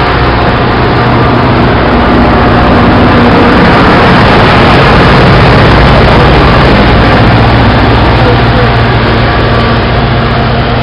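MBTA diesel commuter train moving along the platform: steady wheel-and-rail noise over a low engine drone, swelling about halfway through and easing off near the end as the last coach pulls away.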